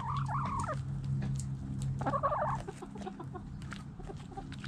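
Backyard hens clucking in two short bouts, one at the start and one about two seconds in, over scattered small clicks of the birds scratching and pecking in dry dirt. A steady low hum runs underneath.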